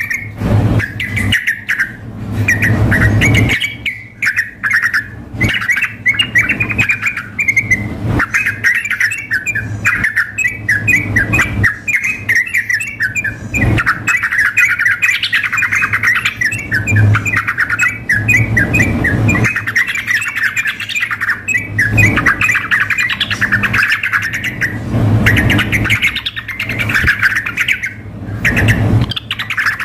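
Yellow-vented bulbuls singing and calling without pause, rapid bubbly chattering phrases repeated over and over, the loud 'gacor' song of a male in full voice. Low rumbles come and go beneath the song.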